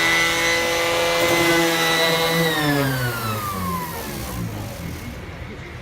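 Cordless 18V orbital sander motor running with a steady whine, then switched off about two and a half seconds in, its pitch falling as it winds down.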